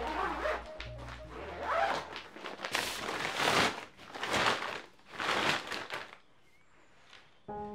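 Woven-plastic storage bag crinkling and rustling in several long strokes as it is zipped and handled. Background music fades out at the start, and piano music comes in near the end.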